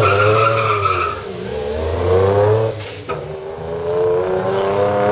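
Nissan 300ZX's engine revving hard as the car launches and accelerates, with a steady high squeal in the first second. The revs drop with a sharp crack about three seconds in, then climb again.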